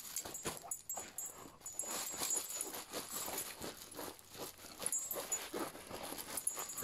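A greyhound chewing and gnawing a soft fabric plush toy, an irregular run of short chewing and scraping noises.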